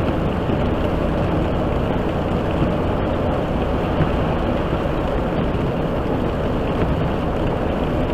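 Steady running noise of a truck at highway speed, heard from inside the cab: engine and tyres on a snowy road, an even low rumble with no change.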